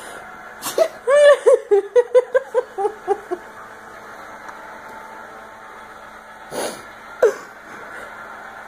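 A person laughing: a burst of about a dozen quick "ha" pulses falling in pitch, lasting about two and a half seconds. Later come two short breathy bursts about a second apart.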